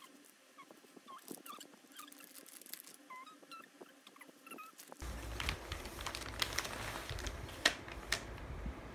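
Plastic stick-pack cat treats handled and set down on a wooden floor: light taps and crinkles, with a few short squeaky chirps. About five seconds in the background turns louder and fuller, with a low rumble under further clicks.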